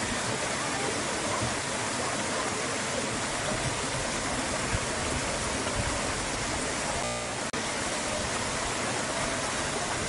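Stream water running over and between rocks, a steady rushing hiss that cuts out for a moment about seven and a half seconds in.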